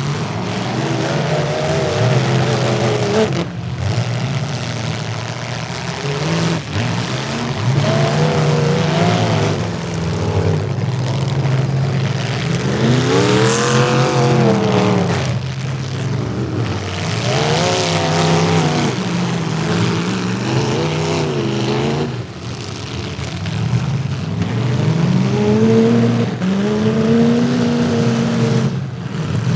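Demolition derby car engines revving hard, their pitch rising and falling again and again.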